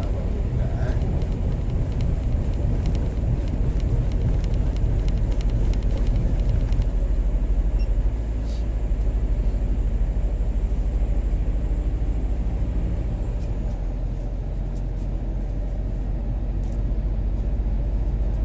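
Scania G 410 truck's six-cylinder diesel engine and tyre noise heard inside the cab while cruising, a steady low drone that eases slightly about eight seconds in.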